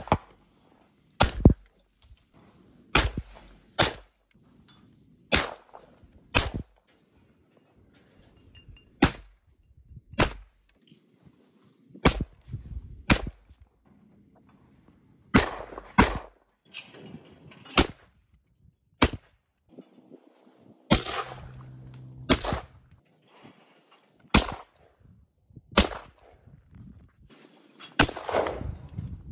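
Browning Cynergy over-under shotgun firing about twenty sharp shots, many of them in pairs about a second apart, each with a short ringing tail.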